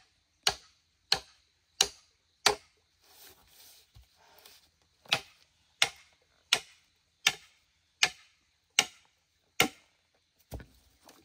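Steady, evenly paced sharp chopping strikes, about one every 0.7 seconds. They break off for a couple of seconds about three seconds in, then resume. A duller, lower thud comes near the end.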